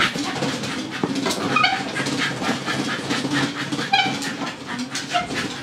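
Firepaw dog treadmill clattering in a fast, even rhythm under a running dog. The dog gives a few short high whines.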